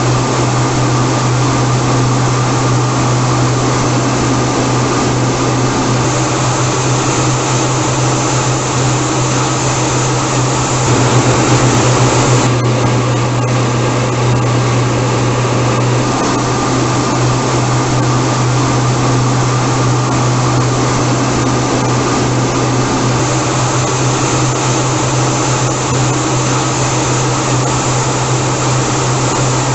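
Steady jet engine noise: an even, continuous rushing sound with a strong low hum underneath, briefly a little louder about a third of the way in.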